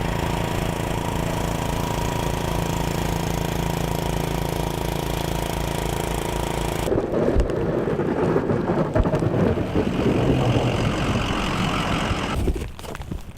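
An engine running steadily for about seven seconds, then a sudden change to a rougher, fluctuating mechanical noise that drops away near the end.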